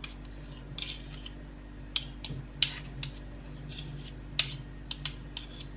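Faint clicks and scrapes of a metal teaspoon as lemon curd is spooned into a glass bowl, a handful of light taps spread through, over a steady low hum.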